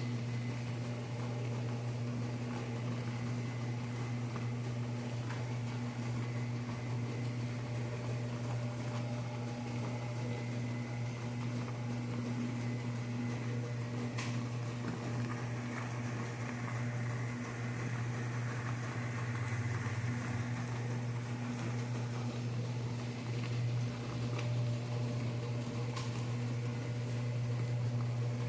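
Agitator washing machines running together: a steady motor hum with a faint wash-water noise, broken by a couple of faint clicks.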